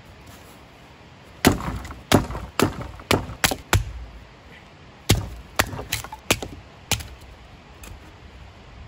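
Axe chopping and splitting a round of blown-down pine into firewood: a quick run of sharp chops about half a second apart, a pause, then a second run.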